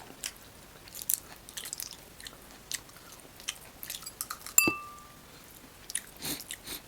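Close-up chewing and crunching of fried crab, with many small crackles of shell breaking between the teeth. About four and a half seconds in, a single sharp clink rings briefly, like a hard object striking a plate or bowl.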